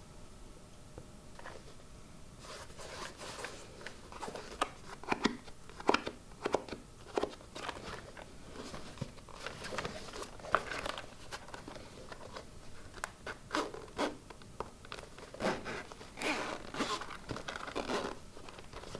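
The zipper of a Synco G1A2's hard-shell carrying case is drawn open in a series of short, irregular pulls. Light handling noise of the case and a paper leaflet mixes in.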